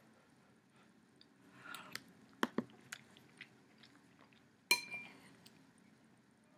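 Close-up chewing of a mouthful of chicken soup, with soft wet mouth noises and a few sharp clicks. Near the end a spoon strikes the bowl once, a sharp clink that rings briefly.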